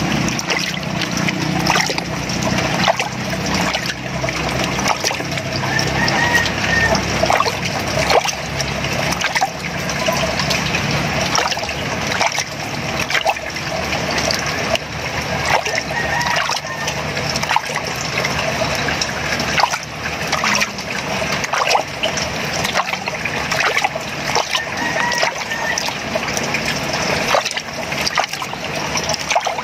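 Water splashing and trickling in a basin while wet hands handle fish, with many small wet clicks and slaps.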